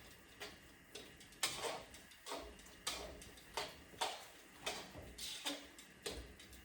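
A series of light, sharp clicks or taps, repeating irregularly about every half second to a second, over a faint low hum.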